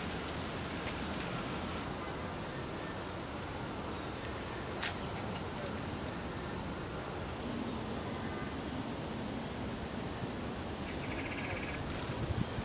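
Steady outdoor background hiss with no clear source, and one sharp click about five seconds in.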